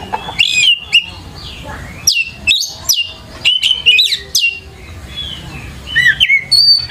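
Oriental magpie-robin (kacer) in full, vigorous song: loud bursts of rapid, sharp whistles and sweeping notes. It eases off for about a second past the middle, then picks up again near the end.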